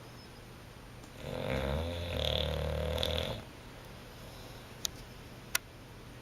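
English bulldog snoring: one snore of about two seconds starting about a second in, then a lull broken by two brief clicks near the end.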